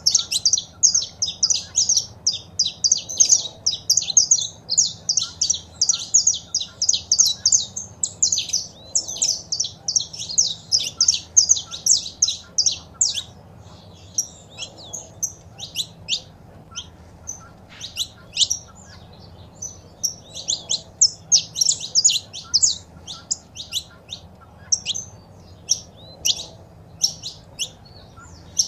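Saffron finches calling and singing: a rapid run of short, high chirps, dense for roughly the first half, then sparser and spaced out.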